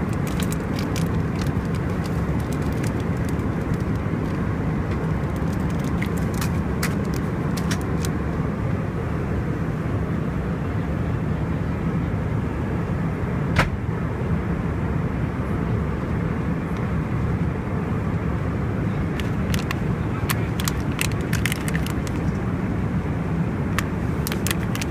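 Steady low roar of an Airbus A319's cabin in cruise, heard from a rear economy seat, with engine and airflow noise from its IAE engines. Light clicks and crinkles of a cardboard snack box and a plastic crisps bag being handled come and go, with a single sharper click about halfway through and a cluster of crinkles near the end.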